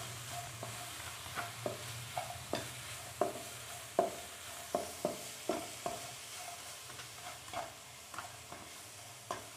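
Plastic spatula scraping and tapping against a nonstick frying pan, stirring sliced green bell peppers that are half-frying in a little oil. The strokes come irregularly, about one or two a second, over a light sizzle.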